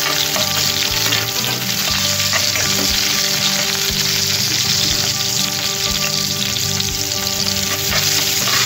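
Diced onion sizzling steadily in hot ghee in an iron kadhai, with a steel spoon scraping and clicking against the pan as it is stirred.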